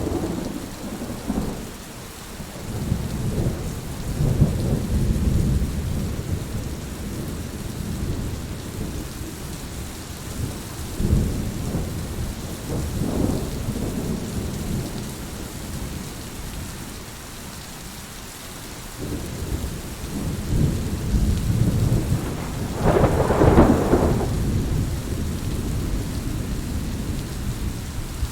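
Heavy rain falling steadily with thunder rumbling again and again, each roll swelling and fading. The loudest, sharpest thunderclap comes about three quarters of the way through.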